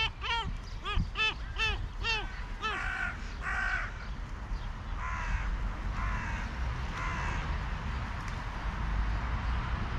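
Crows cawing: a quick run of short caws, about three a second, then slower, harsher caws a second or so apart that die away. A steady low rumble lies underneath.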